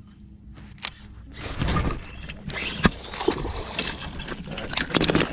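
A hooked bass thrashing and splashing at the surface as it is hauled out of the water, starting about a second and a half in, with a couple of sharp clicks.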